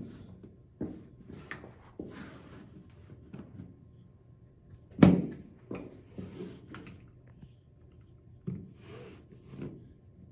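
Handling noise of tool cart parts being fitted together: scattered knocks and clicks, one louder knock about five seconds in, with brief rustling between.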